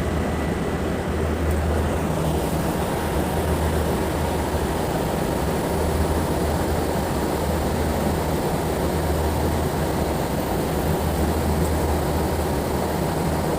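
Armstrong VFD-driven pump and its motor running steadily: a continuous low hum under dense mechanical noise.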